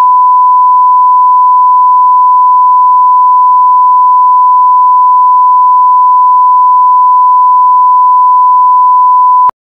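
Bars-and-tone test signal: a loud, steady, pure 1 kHz reference tone at one unchanging pitch, cutting off suddenly near the end.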